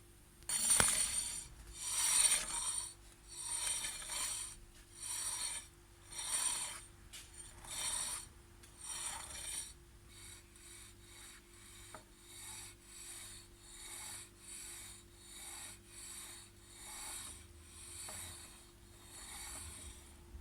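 Rhythmic scraping rub from a turning wheel with a brake disc and drive chain, once per turn, with a faint high ringing. It repeats about once a second, then from about halfway comes faster and fainter. It is a strange noise that the owner cannot place between the brake disc and the chain.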